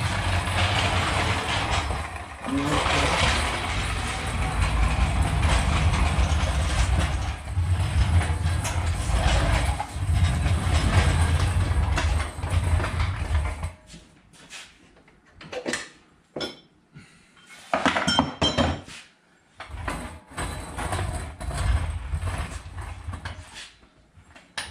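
Tool and handling noise from taking the rear wheels off an ATV. About fourteen seconds of continuous mechanical noise give way to scattered short knocks and clanks for the rest.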